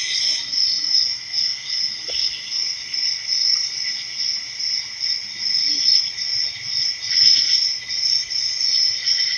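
Crickets chirping steadily in an evenly pulsing high trill, a night-time ambience sound effect.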